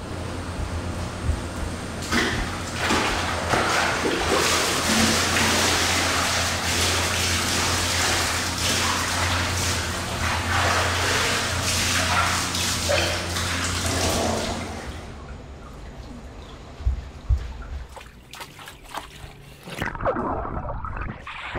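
Water rushing and splashing for about thirteen seconds over a steady low hum, then dropping away about fifteen seconds in to quieter trickling with a few small knocks.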